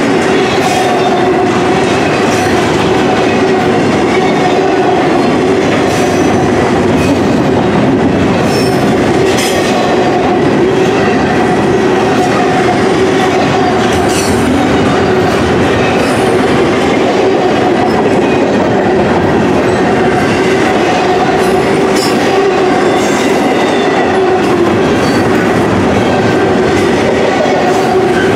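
Double-stack intermodal container cars of a freight train rolling past steadily: a continuous rumble and clatter of steel wheels on rail, with a few sharp clicks and a thin, steady wheel squeal over it.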